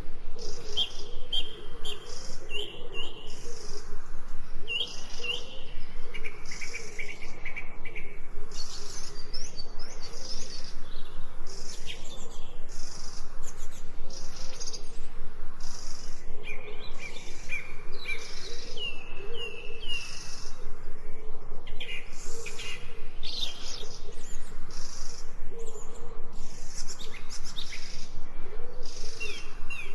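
Several birds singing at once, with short repeated whistled phrases coming again and again over a continuous background of other bird calls.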